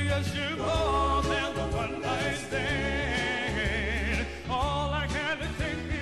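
Live soul music: a male vocal group singing in harmony with vibrato over a band with a steady bass line and drums.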